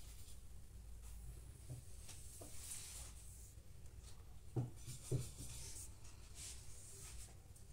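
A paintbrush stroking paint across paper, a soft brushing rub, with two dull knocks about half a second apart a little past the middle.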